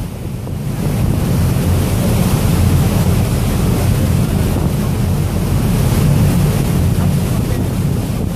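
Wind buffeting the microphone on the open deck of a moving harbour ferry, over a steady low rumble of the ferry's engine and water rushing past the hull.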